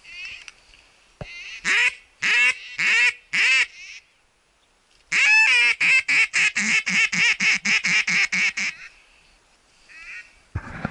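Duck call sounded in a mallard hen's pattern: four long quacks, then after a short pause a fast run of about twenty quacks that trails off. It is a hunter calling ducks in to the decoys.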